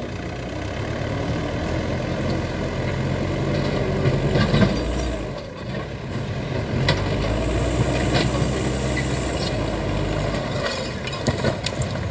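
Backhoe loader's diesel engine running under load as its front bucket pushes over a brick wall, with knocks and clatter of falling bricks and debris. The engine note drops briefly about five seconds in, then picks up again.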